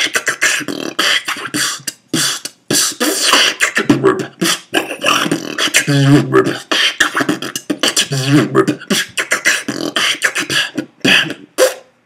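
Human beatboxing: a fast, dense run of mouth-made kick, hi-hat and snare sounds with short pitched vocal sounds worked in, stopping abruptly at the end.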